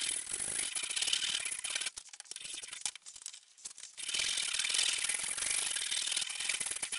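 Metal hand file rasping in quick back-and-forth strokes across a hardwood axe handle, dropping away for about two seconds in the middle before starting again.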